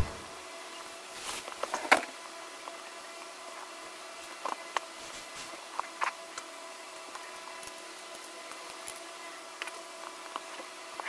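Quiet handling of a cardboard product box: scattered soft taps, clicks and rustles as it is held, turned and picked at with the fingers, over a faint steady hum.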